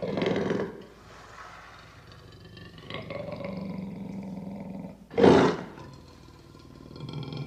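Lion roaring and growling: a loud roar at the start, quieter low growls in the middle, and a short, very loud roar about five seconds in.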